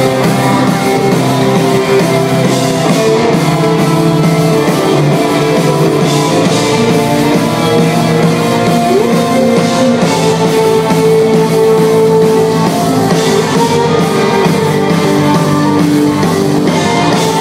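Live rock band playing loud and steady, with electric guitar holding sustained chords over drums, heard from within the audience.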